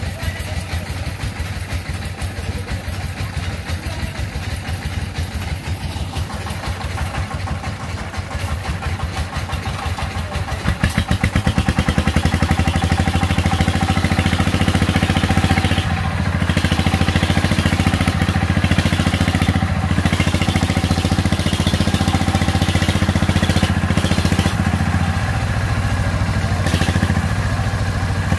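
Single-cylinder diesel engine of a công nông farm truck running with a rapid, steady chugging; about eleven seconds in it gets louder and runs harder.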